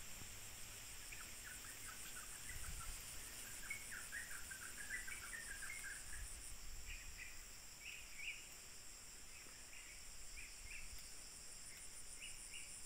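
Faint outdoor ambience: a steady, high, pulsing insect chorus with short bird chirps scattered through it, busiest in the first half.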